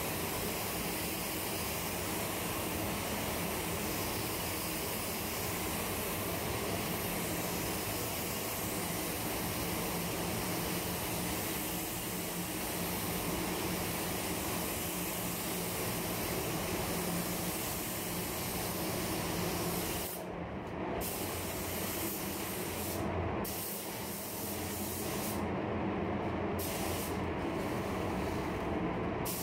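Gravity-feed spray gun hissing steadily as it sprays single-stage paint, with a lower steady rush underneath. Near the end the hiss cuts out briefly several times.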